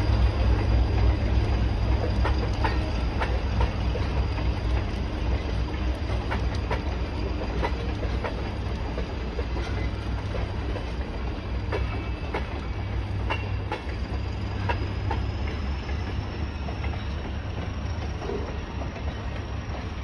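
Passenger train coaches rolling past: a steady low rumble with the clickety-clack of wheels over rail joints, slowly fading as the train moves off.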